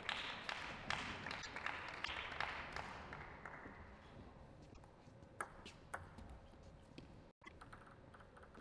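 A few separate sharp ticks of a celluloid table tennis ball, about five to six and a half seconds in. Before them a hiss of hall noise fades out over the first few seconds.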